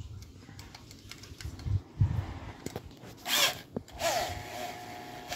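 Handling knocks and clicks, then a variable-speed electric drill run briefly: a short burst about three seconds in, then the motor running at a steady, slow speed with a steady whine for the last second or so.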